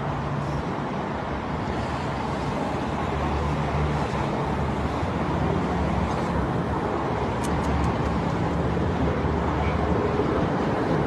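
Steady outdoor city noise of road traffic, with a low engine hum that comes and goes.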